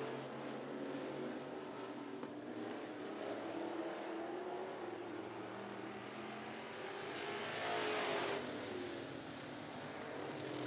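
Classic dirt-track race cars running laps in a pack: a steady drone of several engines at once, their pitches rising and falling together. The sound swells louder for a moment about eight seconds in as the pack comes round.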